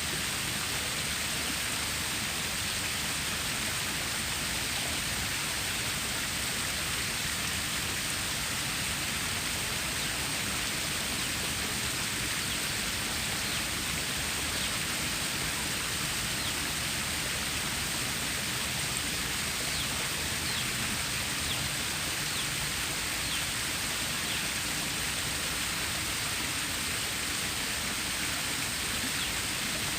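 Stream water rushing and splashing in a steady, unbroken hiss.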